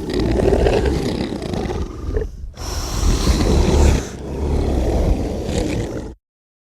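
Monster roar sound effect: a long, rough roar with a heavy deep rumble. It breaks off briefly about two and a half seconds in, roars again, then cuts off abruptly near the end.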